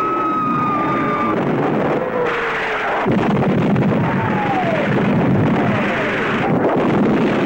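Sci-fi film trailer sound effects. A held high electronic tone and a slowly sinking lower tone open it, then from about two seconds in comes a continuous noise of explosions, with falling whistles like jet aircraft diving past.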